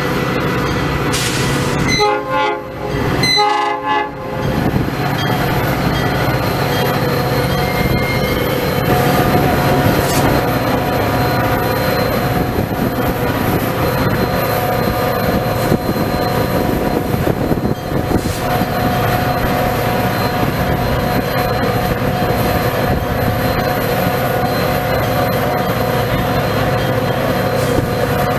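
Metra F40PH diesel locomotive sounding two short horn blasts about two seconds in as it arrives, then rolling in and stopping, its diesel engine running steadily with a constant hum while it stands at the platform.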